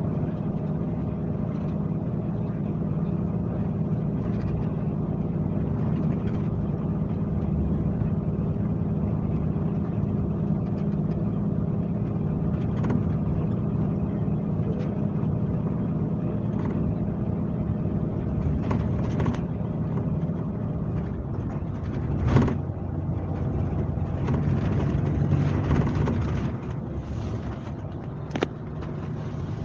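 Scania K370C coach's diesel engine running steadily under way, heard from on board, a steady drone with road rumble. About 21 seconds in the engine note changes, and a few sharp knocks and rattles follow, the loudest just after.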